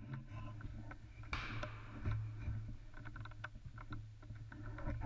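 Handling noise from a camera mounted on a shotgun as the gun is raised and held: a steady low rumble with scattered small clicks and knocks, and a brief rustle about a second and a half in. No shot is fired.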